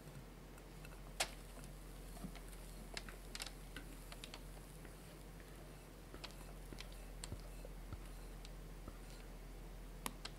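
Thick chiffon-style cake batter poured from a glass bowl onto a parchment-lined baking tray: faint scattered ticks and soft clicks, with one sharper click about a second in, over a low steady hum.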